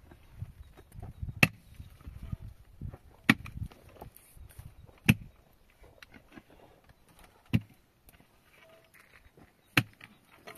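Five sharp strikes, one about every two seconds, with softer knocks and rustling between them.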